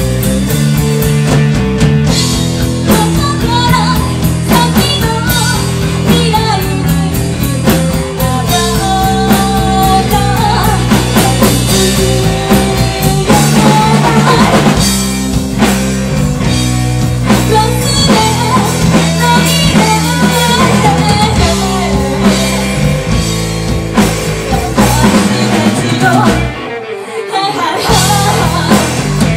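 Live rock band: a woman singing over electric guitar, electric bass and a drum kit. The band drops out for about a second near the end, then comes back in.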